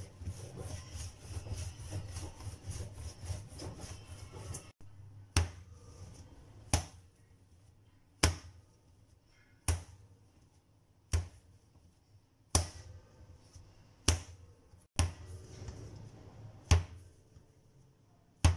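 Bread dough being kneaded by hand on a stone countertop. A dense, rapid rubbing comes first; after an abrupt break, a sharp thump about every second and a half as each stroke presses and folds the dough against the counter.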